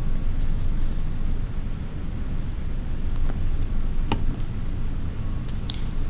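A steady low rumble of background noise, with a few light clicks and rustles as pieces of paper are handled and pressed down, the clearest click about four seconds in.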